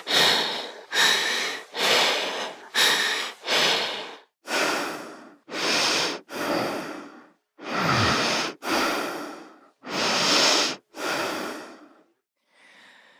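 A person breathing hard in and out, quick breaths of about two a second at first, then slower, deeper breaths with short pauses between them. About two-thirds of the way through, one breath carries a low voice falling in pitch, and the last breath is faint.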